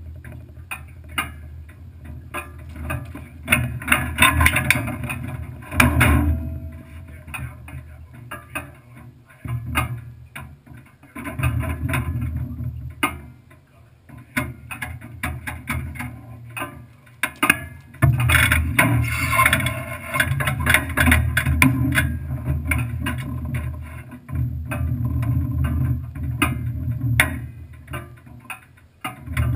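Off-road trophy truck's engine running and revving up in several bursts, with rattling and clicking from the chassis over it.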